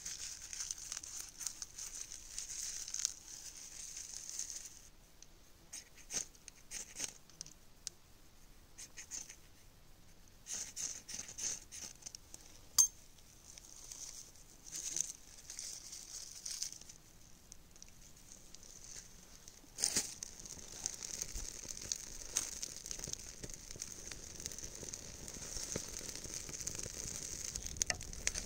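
Dry tinder and small twigs being crumpled, torn and snapped by hand while laying a campfire, with scattered sharp clicks. From about two-thirds of the way in, a small twig-and-stick wood fire is crackling steadily.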